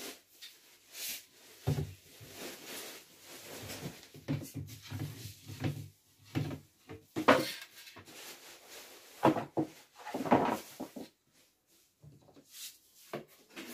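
Irregular knocks, taps and scrapes as a broom handle is handled and a small brush head is worked onto its end, with one sharper knock about halfway through.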